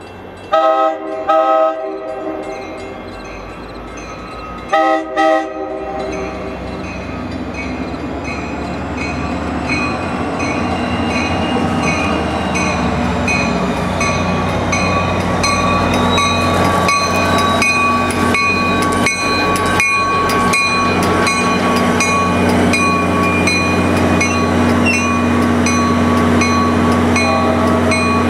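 An NJ Transit commuter train's horn sounds in two pairs of short blasts a few seconds apart. The train then grows steadily louder as it comes in, its wheels clicking over the rail joints under a steady whine.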